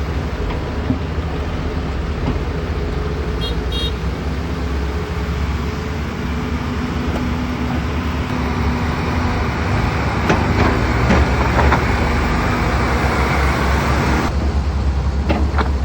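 Volvo EC480 excavator's diesel engine running steadily with a deep rumble, growing louder and working harder from about eight seconds in. Several clanks and knocks come in the last few seconds.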